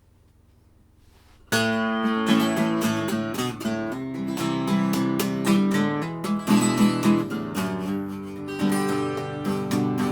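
Song intro on acoustic guitar, chords strummed and plucked, starting suddenly about a second and a half in after near silence.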